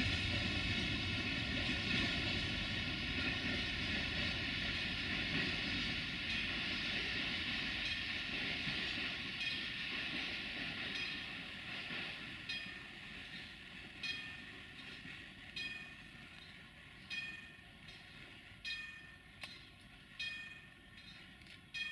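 Freight train rumbling away into the distance and fading, with a level-crossing warning bell ringing over it. As the train noise dies down, the bell's separate strikes, about one a second, stand out.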